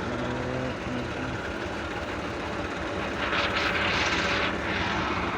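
Combine harvester engine running steadily, with a louder rushing noise rising over it about three seconds in for a second or so.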